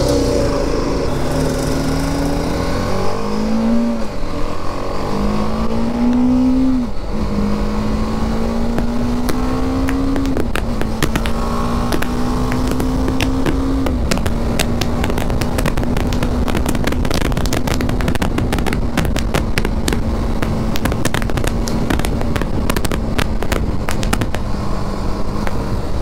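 BMW G 310 GS's single-cylinder engine accelerating through the gears. Its pitch climbs and drops back at each of several upshifts over the first fourteen seconds, then holds steady at cruising speed. Wind rushes and buffets over the microphone.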